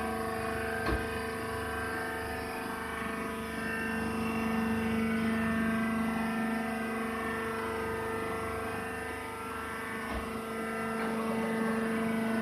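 Hydraulic baling machine running with a steady motor-and-pump hum, with a brief knock about a second in and another near the end.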